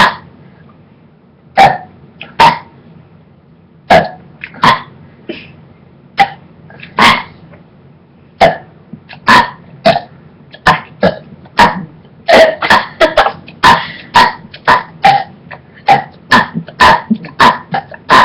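A person forcing up a series of short, abrupt burps and throat grunts, one every second or so at first, then coming fast, two or three a second, in the last several seconds.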